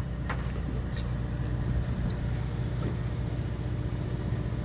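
A fishing boat's motor running with a steady low hum, with a few faint clicks over it.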